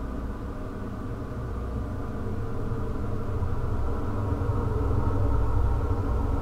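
Dark ambient drone: a deep, steady rumble with layered sustained low tones, swelling slightly in the second half.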